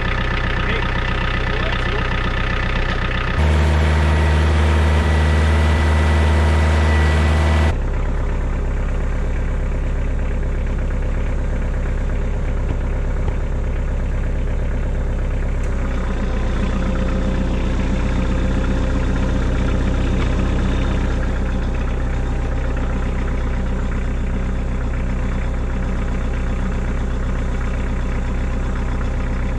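Kioti DK40se compact tractor's diesel engine idling steadily, with a louder, deeper stretch of about four seconds near the start.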